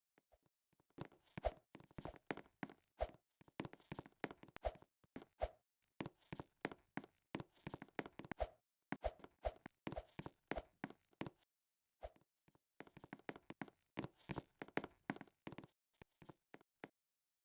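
Faint, irregular taps and knocks, several a second, pausing briefly about six and about twelve seconds in.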